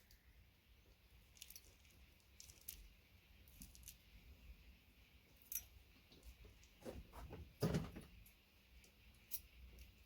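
Faint, scattered clicks and snips of side cutters and small metal parts as a VGA connector is cut apart to free its pins, with a few louder clicks and one duller knock in the second half.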